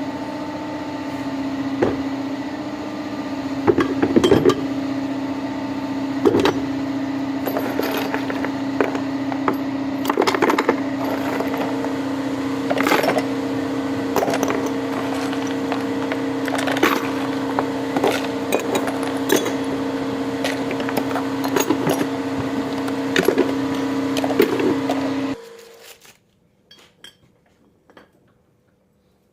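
A machine running with a steady hum, many clicks and metallic knocks over it, cutting off abruptly near the end.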